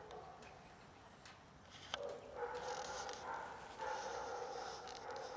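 Cats yowling while mating: a long, drawn-out yowl held on one pitch, starting about halfway through with a short break in it, after a quieter stretch that follows the tail of an earlier yowl. A sharp click sounds just before the yowl begins.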